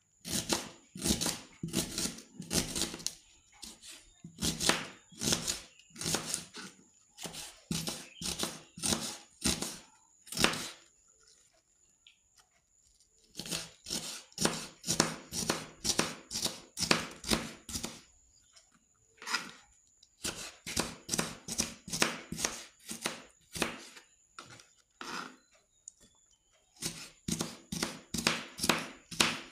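Kitchen knife chopping a red onion on a plastic cutting board: quick, even taps of the blade against the board, about three a second, in runs broken by short pauses.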